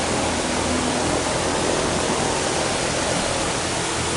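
Steady rushing noise of running shop fans, with a faint low hum underneath.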